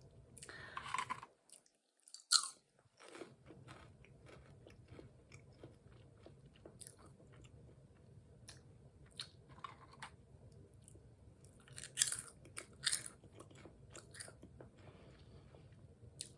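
Potato chips being bitten and chewed close to the microphone: a run of irregular crisp crunches, with a few louder ones.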